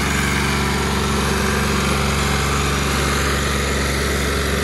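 Tractor's diesel engine running steadily at a constant speed, a deep, even drone, while pulling a loaded soil trolley.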